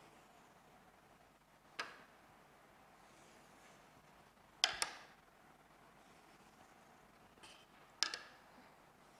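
Wooden ruler knocking against a whiteboard as it is moved down and set in place, three sharp taps about three seconds apart, the later two doubled. Between them, a faint scratch of a marker drawing a line along the ruler.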